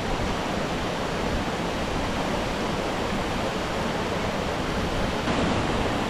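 Waterfall rushing: a steady, loud, even noise of falling water with no breaks.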